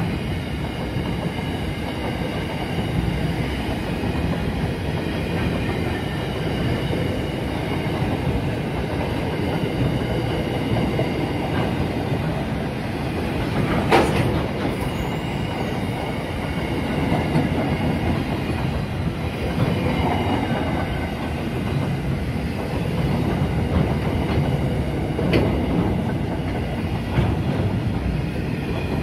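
Long freight train of empty flat wagons rolling past: a steady rumble of wheels with clickety-clack over the rail joints and a faint high squealing. A single sharp clank comes about halfway through.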